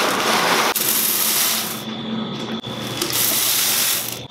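Dry popcorn kernels scooped from a paper sack and poured into a stainless-steel popcorn-machine hopper, making a dense, loud rattling hiss that breaks off abruptly twice.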